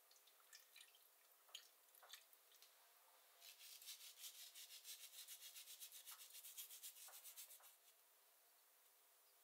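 Salt crumbled between fingertips and sprinkled over green beans in a stainless steel pot: a faint, quick, evenly pulsing rubbing rustle lasting about four seconds, starting a few seconds in. A few light scattered clicks come before it.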